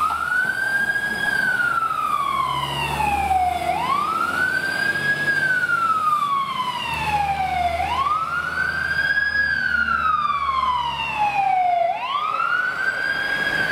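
Fire engine siren wailing, each cycle rising quickly and then falling slowly, about once every four seconds, over the low rumble of the Scania P410 truck's diesel as it drives off on an emergency call.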